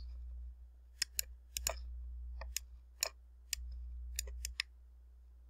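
Computer mouse button clicking: about ten sharp clicks at irregular intervals, over a steady low hum.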